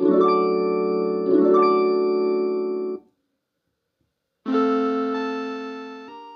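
Suzuki Omnichord OM-108 playing electronic chords strummed on its touch plate in a bright, piano-like voice, two strums in the first three seconds. It stops dead for about a second and a half, then a new chord rings out and fades, shifting near the end.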